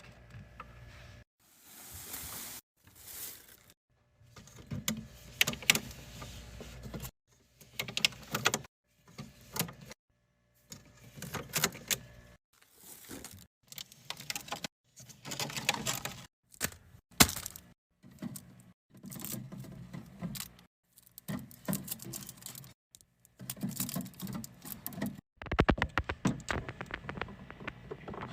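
Snacks and drinks being handled and set into a mini fridge: repeated clinks, clatters and packaging rustle, in short stretches broken by abrupt cuts to silence.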